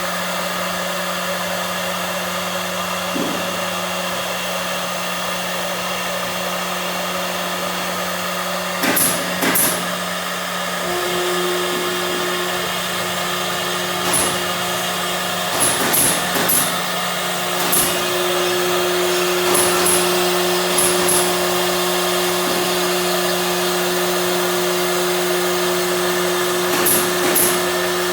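A CNC machine running: a steady motor hum, with a higher tone that stops and starts as it works and short sharp ticks every few seconds.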